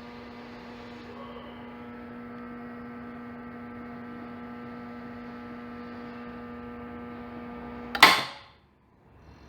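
GE washing machine brake solenoid humming steadily while energised on about 180 V DC. About 8 s in it drops out with one sharp, loud clack, cut off as the washer goes into fault because its motor is not connected.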